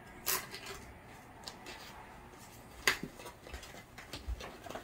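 Handling of a GoPro 10 camera's retail box as its opening tab is picked at and pulled: scattered light clicks and taps of the packaging, with two sharper clicks, one just after the start and one about three seconds in.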